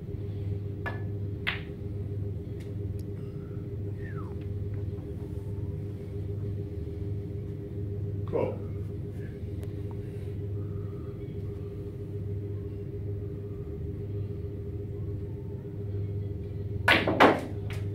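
Snooker balls clicking as a cue strikes the cue ball and it knocks into another ball. A pair of clicks comes about a second in, and two louder sharp clicks close together come near the end, over a steady low hum.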